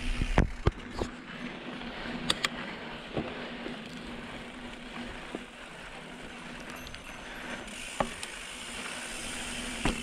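Mountain bike rolling over a rocky dirt trail: steady tyre and wind noise with a low hum, broken by scattered sharp clunks and rattles from the bike, several in the first three seconds and one about eight seconds in.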